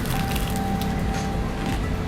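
Crisp crunching as a piece of air-fried chicken with a crackly floured skin is bitten and chewed, a few sharp cracks, over background music with held melody notes.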